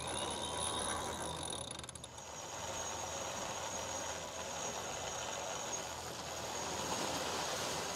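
Sailboat winch ratcheting as the line around it is hauled in to unfurl the gennaker: a steady clicking of the winch pawls, dipping briefly about two seconds in.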